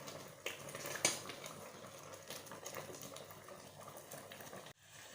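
Rice simmering in coconut milk in a pot, bubbling as the liquid cooks down, with a utensil knocking and scraping against the pot a couple of times; the loudest knock comes about a second in. The sound cuts out briefly near the end.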